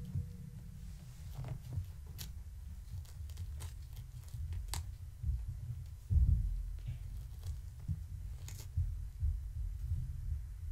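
Kittens scampering and pouncing on a blanket-covered floor: soft paw thumps and light scratchy clicks over a low rumble, with one louder thump about six seconds in.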